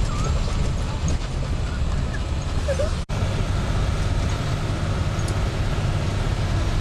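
Tour bus driving along, a steady rumble of engine and tyre noise heard from inside the cabin. The sound briefly cuts out about three seconds in.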